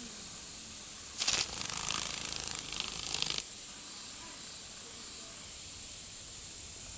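A live cicada caught in a skink's jaws gives a loud, harsh distress buzz. It starts a little over a second in, lasts about two seconds and cuts off suddenly. Behind it is a steady high-pitched drone of cicadas singing.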